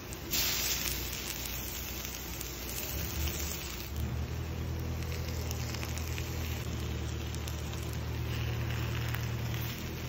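Beef chunks sizzling on a hot volcanic stone, an even hiss loudest for the first few seconds, with a steady low hum underneath.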